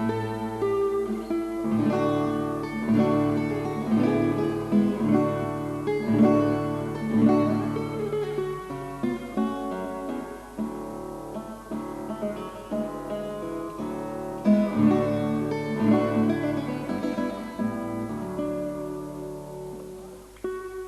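Background music: acoustic guitar playing plucked and strummed notes over a bass line.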